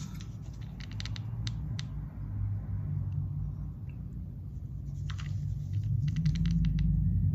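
Small clicks and crackles from a hot glue gun and a mylar-tinsel lure being handled while glue is applied. They come in two clusters, one about half a second in and one about five seconds in, over a low steady hum.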